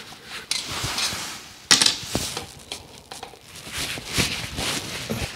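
Insulated screwdriver working the screws of a wall socket faceplate: irregular scraping and clicking of metal against screws and plastic, with a sharp knock about two seconds in.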